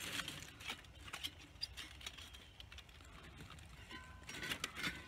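Thin titanium firebox panels and base plate clicking and clinking lightly as they are handled and slotted together, with a quick cluster of clinks about four seconds in.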